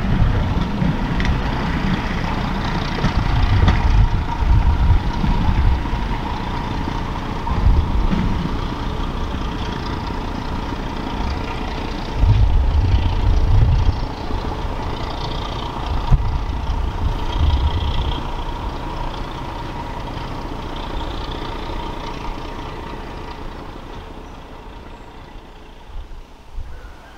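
Diesel train running with a heavy engine rumble and a steady whine, fading away over the last ten seconds or so as it moves off.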